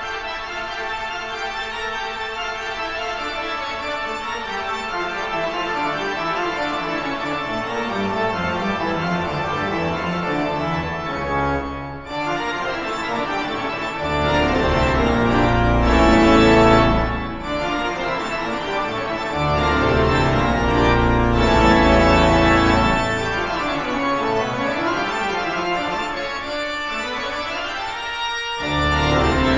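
Background music: sustained organ-like keyboard chords, louder in the second half.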